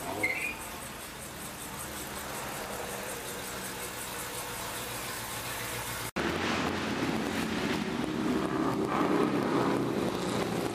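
Classic cars and trucks driving slowly past, their engines running at low speed. About six seconds in the sound cuts out briefly and comes back louder as a classic pickup's engine passes close by, strongest a few seconds later.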